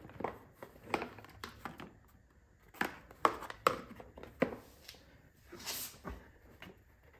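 Plastic air-filter cover on a Briggs & Stratton pressure-washer engine being handled and pressed into place, a string of sharp clicks and knocks. There is a brief rubbing sound near the end.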